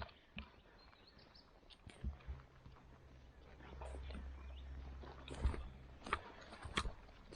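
Outdoor ambience in woodland: a low steady rumble through the middle few seconds, with scattered light clicks and rustles.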